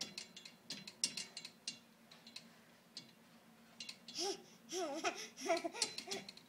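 Ten-month-old baby babbling in a run of short rising-and-falling sounds about four seconds in, after a few light taps and knocks.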